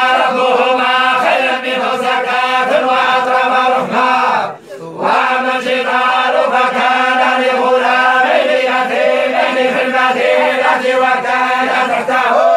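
A group of Moroccan tolba (Quran reciters) chanting together in unison on a steady pitch, breaking off briefly for breath about four and a half seconds in.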